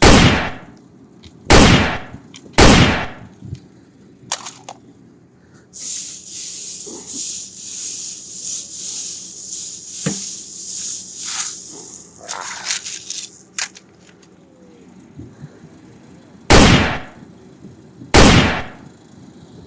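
Toy gun shots: five sharp, loud bangs, three close together at the start and two more near the end. In between comes a stretch of high hissing with scattered clicks.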